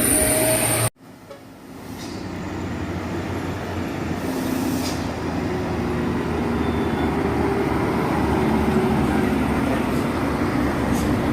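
Heavy truck engine running under load on a climb, with road noise. About a second in the sound cuts off abruptly, then builds back up over several seconds and holds steady.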